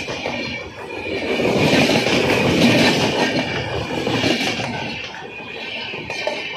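Passenger coaches of an express train rolling past close by, the wheels rumbling and clattering on the rails. The noise swells about two seconds in and eases towards the end.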